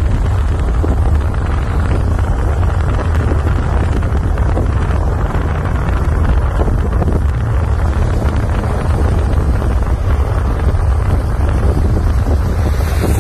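Steady low rumble of a moving car, with wind buffeting the microphone.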